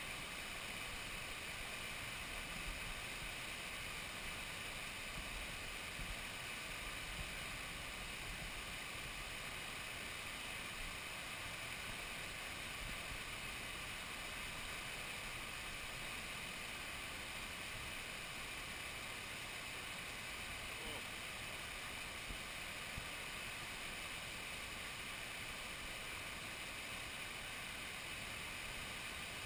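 Steady rush of river water pouring over a weir and through a fish pass.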